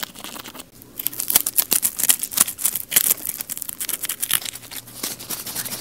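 Crispy garlic fried chicken crunching, bitten and chewed close to the microphone: a dense run of sharp crackles.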